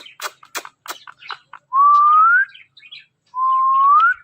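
Ringneck parrot giving two clear whistles, each held steady and then rising at the end, after a quick run of sharp clicks.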